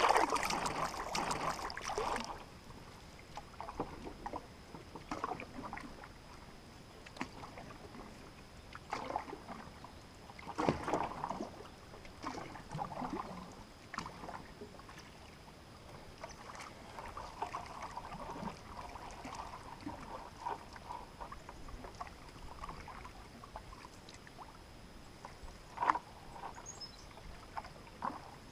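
Canoe paddle strokes on calm water: soft swishes and drips every few seconds, loudest at the start, with one short sharp knock near the end.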